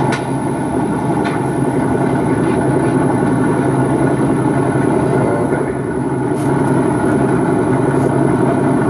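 Engine idling steadily: a constant, even drone that does not change pace.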